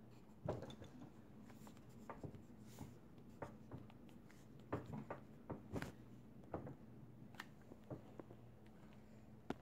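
Coloured pencil scratching and tapping on paper in short, irregular strokes, faint, over a low steady hum.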